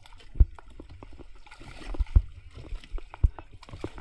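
Sea water sloshing and slapping against the side of an outrigger boat, with several irregular low thumps.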